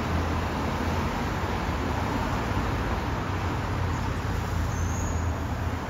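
Scania K230UB city bus pulling away, its five-cylinder diesel engine and ZF automatic gearbox running under load, a loud gearbox whine mixed with a low engine rumble. It fades slightly as the bus draws away, with other road traffic around it.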